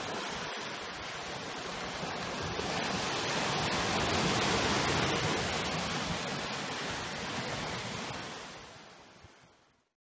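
Small sea waves breaking and washing up a sandy shore: a steady rush of surf that swells about halfway through, then fades away near the end.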